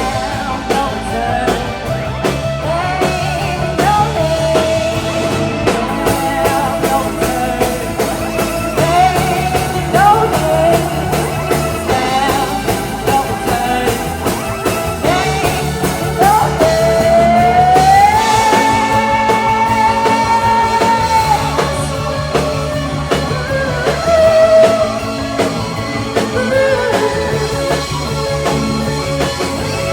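Rock band playing live, with singing over guitar, bass and drums. A long high note slides up a little over halfway through and is held for a few seconds.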